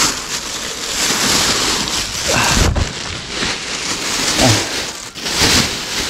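Loud, steady rushing noise on the microphone, with two brief faint vocal sounds, one about two and a half seconds in and one near four and a half seconds.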